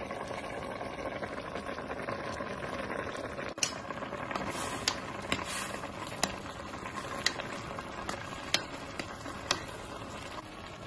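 Rice, peas and carrots simmering in chicken broth in a steel pot, bubbling steadily. From about three and a half seconds in, a spoon stirs the pot, with about eight sharp clinks against its side.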